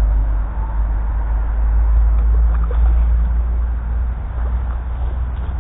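A strong, steady low rumble with an even hiss above it and a few faint ticks, loudest in the middle and easing off towards the end.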